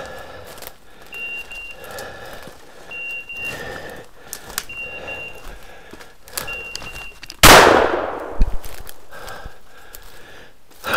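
A shotgun fires once about seven and a half seconds in, a loud blast with a trailing echo, followed by a sharp knock about a second later. Before the shot there are footsteps in dry leaves and a short high electronic beep repeating about every second and three quarters, typical of a hunting dog's beeper collar.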